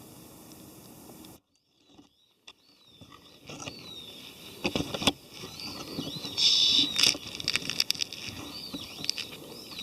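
Small birds chirping repeatedly, with several sharp knocks and clatter, the loudest around the middle. A steady hiss in the opening second or so breaks off suddenly.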